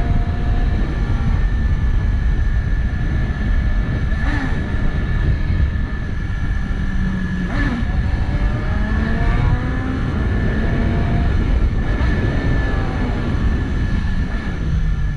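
BMW S1000RR sport bike's inline-four engine running under way over a dense low rumble, its note rising and falling several times with the throttle.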